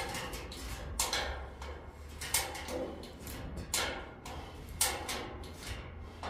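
Irregular metallic clicks and clanks, roughly one cluster a second, from hardware being worked by hand on steel pallet racking, over a steady low hum.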